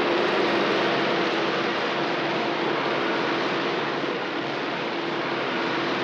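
Ford 7710 diesel tractor running steadily under load while ploughing, a continuous drone; its note shifts slightly lower near the end.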